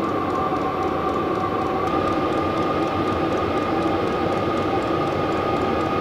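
Vevor diesel heater running steadily after a successful start: a continuous fan whine and hum, its pitch stepping up slightly about two seconds in.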